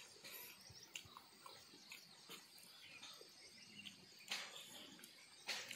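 Faint close-up eating sounds: soft chewing and small mouth clicks, with two sharper smacking bursts about four and five and a half seconds in.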